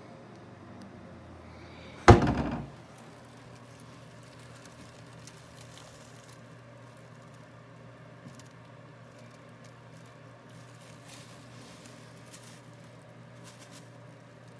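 A single loud thump about two seconds in, with a short ringing decay, over a steady low hum.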